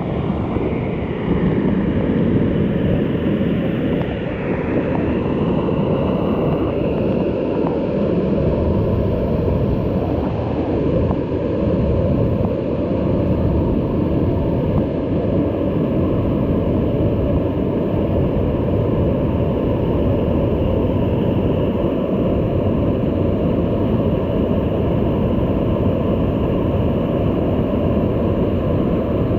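Waterfall: a steady, unbroken rush of falling water, a dense low noise.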